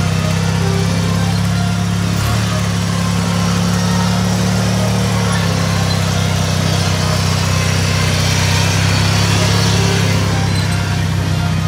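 Small engines of modified off-road riding lawn mowers running steadily as they crawl over rough ground. The engine note shifts about two seconds in and drops slightly about five seconds in.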